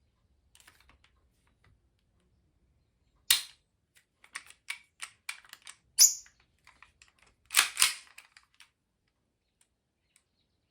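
Full-metal 1911 Hi-Capa airsoft pistol's slide and action being worked by hand, unloaded with no CO2: sharp metal clacks about three seconds in, around six seconds and twice in quick succession near eight seconds, with lighter clicks of the parts in between.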